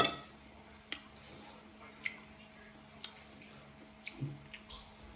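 Metal fork and spoon clinking against a ceramic plate while twirling and scooping spaghetti: one sharp ringing clink at the start, then light taps about once a second. Between them, soft wet eating sounds.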